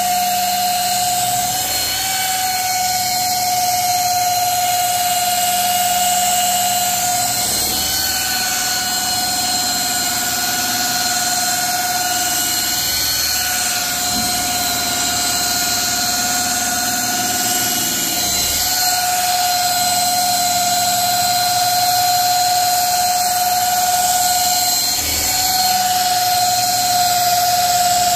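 Electric polisher running at low speed with a wool compounding pad on a painted panel: a steady motor whine that sags briefly in pitch a few times.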